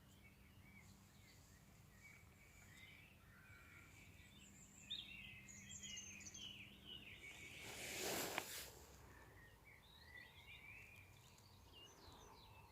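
Faint outdoor ambience of small birds chirping and twittering on and off, over a low steady hum. About eight seconds in, a brief rushing swell of noise rises and falls away, with a sharp click at its peak.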